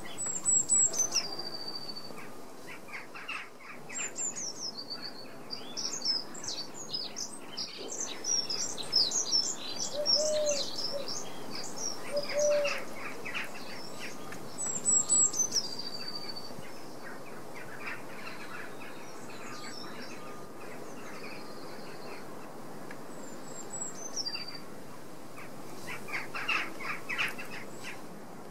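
Woodland birdsong: several small birds chirping and trilling, one repeating a high, falling phrase several times, with two short low calls about ten and twelve seconds in, over a steady background hiss.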